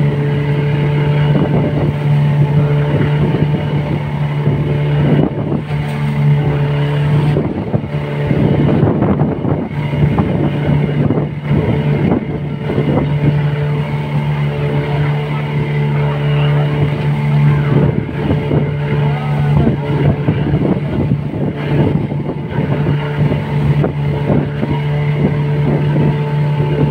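Boat engine running at a steady speed, a constant low hum, with water rushing and splashing along the hull.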